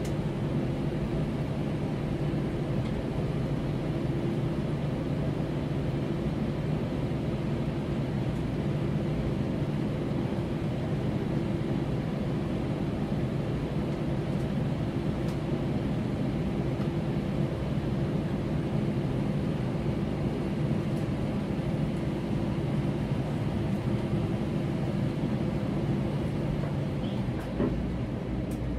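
Cabin noise inside an Airbus A320 on the ground after landing: its CFM56-5B engines running at idle, a steady hum with a low drone. A small knock comes near the end.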